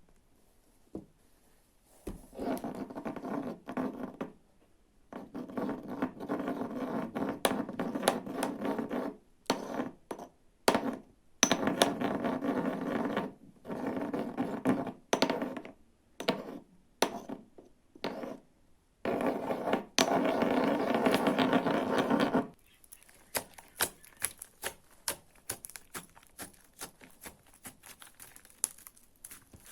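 Slime being mixed and handled: stretches of raspy scraping and stirring, then a run of many small sticky clicks and pops near the end.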